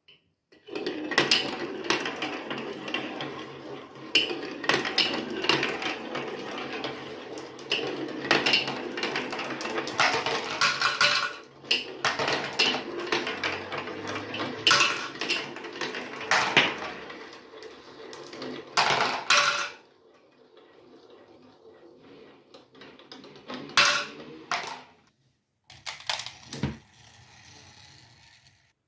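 Marbles rolling and clacking down a plastic building-block marble run: a steady rolling rumble full of sharp clicks and knocks as they hit the track pieces and each other. Past the two-thirds mark the rolling dies down, leaving a few separate clacks.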